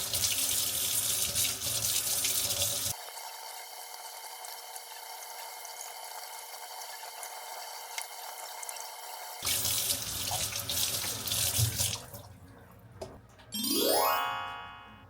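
Tap water running hard into a sink, falling to a quieter, thinner rush for several seconds in the middle and then running full again. Near the end the water stops and a short rising whistle-like sound effect sweeps upward.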